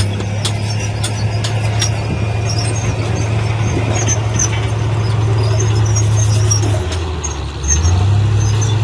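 Diesel engine of heavy earthmoving machinery running steadily, with a low drone that drops for about a second near the end and then picks back up. Short high-pitched squeaks and clicks come and go over it.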